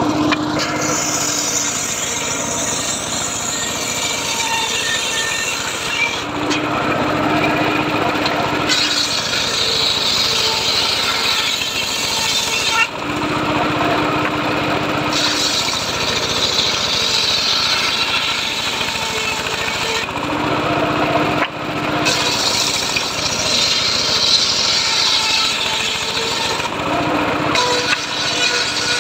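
Homemade table circular saw ripping old teak boards, a continuous rasping cut. The cut is broken about four times by short spells where the blade spins free with a steady hum between passes.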